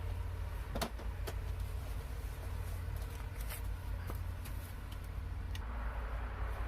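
A few light clicks and taps from hands working an old exterior light fixture loose, over a steady low rumble.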